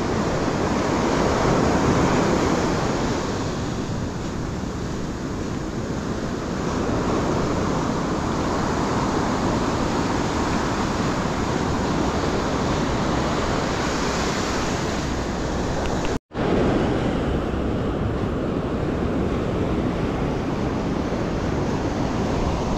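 Surf breaking and washing up a sandy beach, with wind buffeting the microphone. The sound cuts out for a split second about sixteen seconds in.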